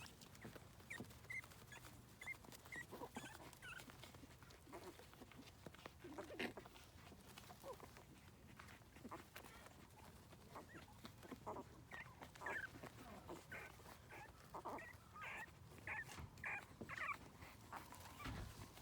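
French Bulldog puppies whimpering faintly, with short high squeaks scattered throughout and coming more often in the second half.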